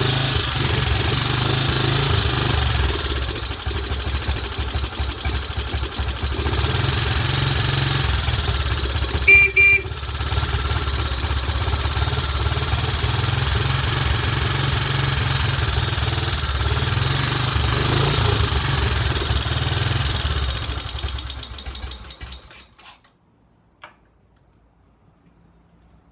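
1954 BSA C10's 250 cc sidevalve single-cylinder engine idling steadily after a cold start, with a short double beep about a third of the way in. Near the end the engine dies away and stops, followed by a single faint click.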